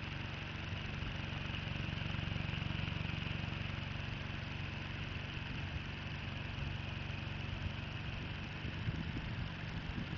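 Small electric motor spinning a propeller clock's LED arm: a steady whirring hum with a hiss over it, a little louder about two to three seconds in.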